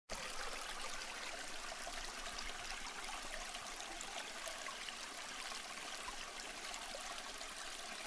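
Small tiered terracotta-pot waterfall fountain: water trickling and splashing steadily from the upper pot into the saucer below.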